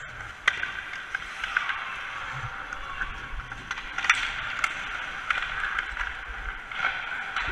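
Ice hockey skate blades scraping and carving across the ice, broken by several sharp clacks of sticks hitting pucks and the ice, the loudest about half a second in and about four seconds in.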